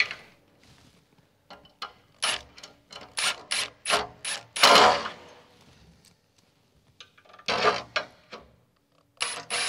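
Shower-door handle halves being screwed together through the glass: a quick, evenly spaced run of about six sharp clicks, a short scraping sound, then a few scattered knocks.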